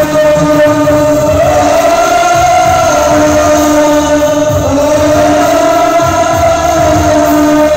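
Karaoke: several men singing through handheld microphones over a loud backing track, with long held notes.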